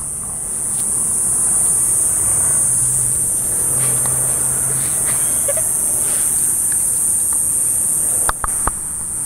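Steady, high-pitched buzzing of insects, with a couple of sharp clicks near the end.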